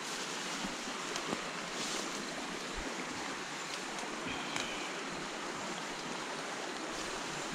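Steady rushing of a muddy creek flowing close by.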